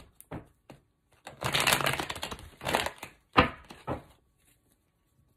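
A deck of tarot cards being shuffled by hand: a long rustling run of cards, then a few shorter rustles and taps.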